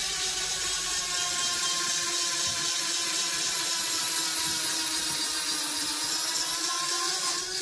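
A pair of LADO electric retract actuators whining steadily as they swing Shinden Machine 1/5-scale Bf 109 undercarriage legs up, the motors cutting off suddenly near the end as the legs reach full retraction.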